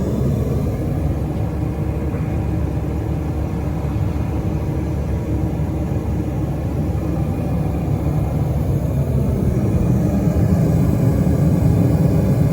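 Gas burner of a Vevor smelting furnace running steadily at full fire, a continuous low, even rush of flame. It is heating a crucible of scrap copper wire whose insulation is burning off.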